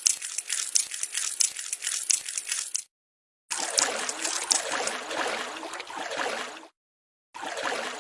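Edited sound-effect track of crackling, splashy noise with many sharp clicks, in three chunks that start and stop abruptly, with dead silence at about three seconds and again near seven seconds.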